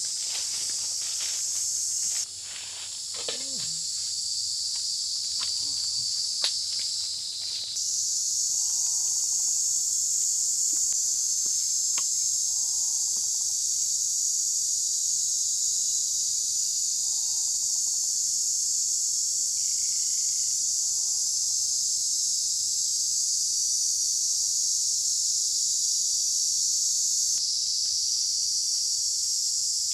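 Steady, high-pitched chorus of forest insects, with footsteps crunching through dry leaves and undergrowth during the first several seconds.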